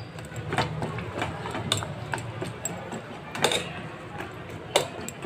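Steel spoon stirring whole green pea pods in water in an aluminium pot, giving irregular clicks and knocks of metal against the pot. A steady low hum runs underneath.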